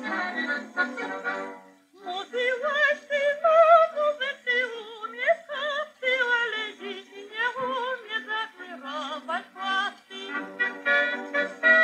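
Old 1938 recording with a thin sound: a high voice sings with strong vibrato and pitch glides. Instrumental accompaniment plays at the start and again near the end.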